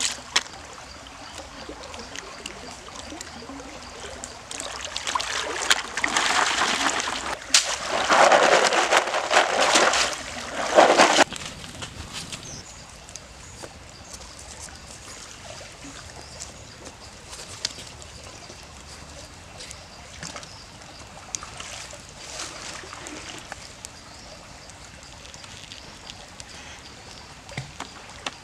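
Shallow canal water splashing and sloshing as a hand scoops field snails out of it, a noisy burst lasting several seconds. Afterwards there is only a quieter steady background with a few light knocks.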